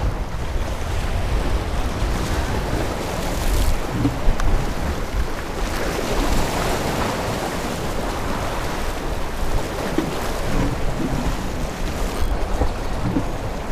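Sea waves washing and splashing against the rocks of a jetty, surging louder and softer, with wind buffeting the microphone.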